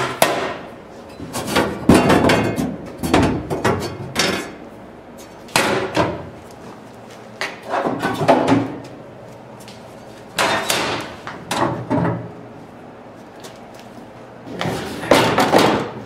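Stainless steel dishwasher strainer screens and trays clanking and knocking against each other and on a stainless steel counter as they are handled and set down. The metal impacts come in irregular clusters with short pauses between.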